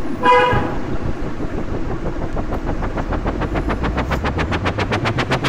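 Battery-powered toy rescue helicopter running, its rotor spinning with a fast, even chopping rattle of about ten beats a second. Near the end a low hum starts to rise in pitch.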